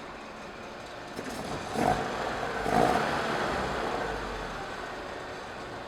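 1968 BMW 2002's inline-four engine, on twin Dellorto DHLA40 carburettors, running in its first warm-up on the new carbs. It swells louder twice, about two and three seconds in, then settles back to a steady run.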